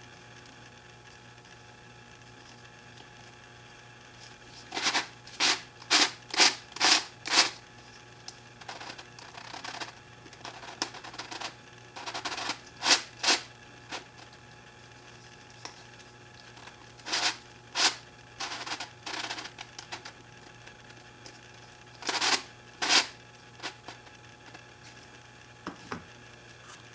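Faces of a 3D-printed face-turning icosahedron twisty puzzle being turned by hand, the plastic pieces clacking and scraping. The turns come in runs of several quick clacks with pauses between. There is a soft knock near the end as the puzzle is set down.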